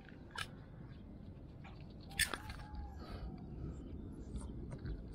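Black puppy mouthing and nibbling at a hand held close to the phone's microphone: scattered clicks and rustles over a low rumble, with a sharper click about two seconds in.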